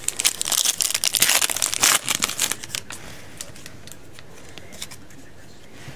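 Foil wrapper of a Panini Phoenix football card pack crinkling as it is opened by hand, a dense crackle for about three seconds. It then dies down to a few faint ticks as the cards are handled.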